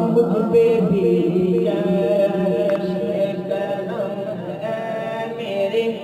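Islamic a cappella vocal background music: a voice singing a slow, drawn-out chant-like melody over a steady vocal drone, with no instruments.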